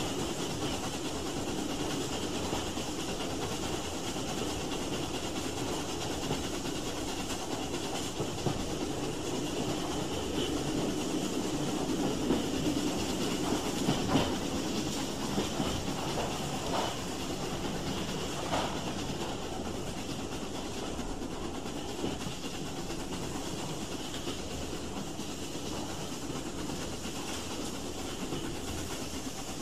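Steam train running, a steady rumble and hiss with a handful of sharper knocks through the middle.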